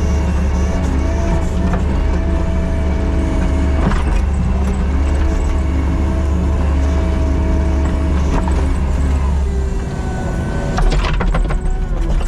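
Diesel engine of a Kubota SVL97-2 tracked skid steer running under steady load, with a whine from the hydraulics over it. About ten seconds in the engine note drops, and a quick series of clanks and knocks follows.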